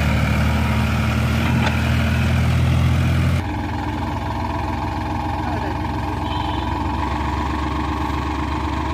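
Farm tractor's diesel engine running with a loud, deep, steady note while it pulls a trailer loaded with sand. About three and a half seconds in, the sound cuts abruptly to a quieter, steady engine run.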